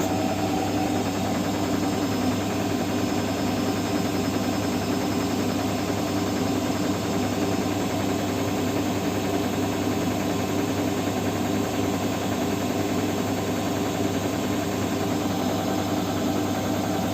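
Siemens washing machine running with a steady motor hum and vibration, level throughout.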